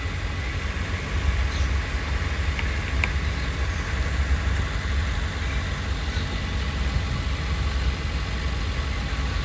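Suzuki Carry CNG/petrol engine idling steadily on petrol, a low even rumble; the van is not changing over to CNG automatically.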